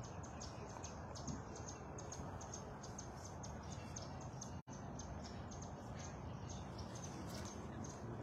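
Faint outdoor ambience: a steady low hiss with many short, high chirps scattered through it, several a second, and the sound cutting out for an instant about halfway through.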